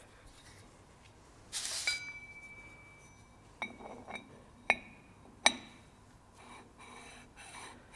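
Machined steel rings of a CNC lathe's milling-spindle coupling being slid and set together by hand. A scraping rub comes about one and a half seconds in, then several light metal clinks that each ring on briefly. The freshly ground contact faces slide smoothly, with no stiction.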